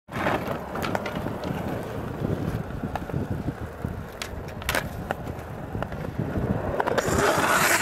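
Skateboard wheels rolling over smooth concrete: a steady low rumble broken by sharp clicks and clacks of the board. Near the end a loud rushing hiss comes in.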